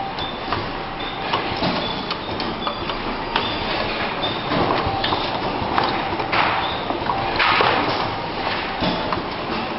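Four-station relay soldering machine running: irregular mechanical clacks and knocks over a steady hiss.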